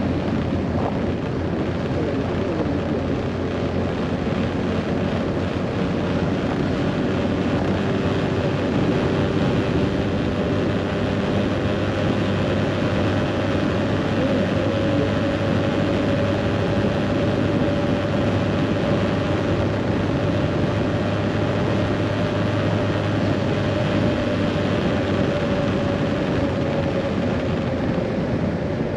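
Scooter engine running steadily while riding, under a constant rush of noise. Its engine note holds at an even pitch for most of the stretch.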